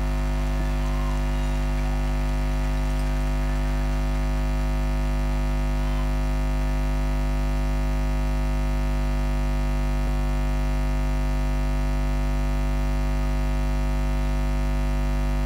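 Steady electrical mains hum from the sound system's audio mixer, a low buzz with several overtones and no music over it.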